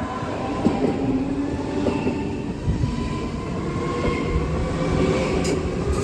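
A train approaching and running past, growing louder over the first second, then a steady rumble with thin wheel-squeal tones. A sharp click or two come near the end.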